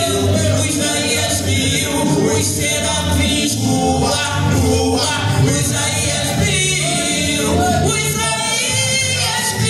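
Music with singing, several voices in a choir-like blend over a steady bass line.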